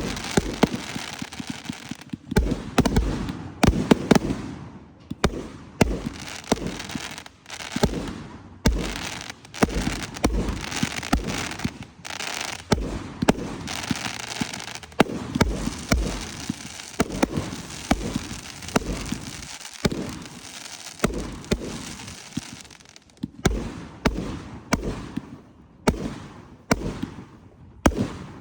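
Fireworks display: a rapid barrage of booming shell bursts, each followed by a low rumble, with stretches of crackling between them. Near the end the bangs come about once a second.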